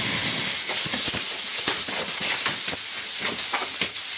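Compressed air hissing steadily out of a homemade compressor's tank, made from an old fire extinguisher, as it is vented to let the pressure down.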